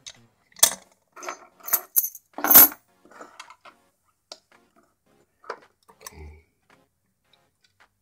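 Metal lock-picking tools clinking as they are handled and set into a brass euro cylinder lock. A few sharp clinks come in the first three seconds, the loudest about two and a half seconds in, followed by lighter scattered ticks.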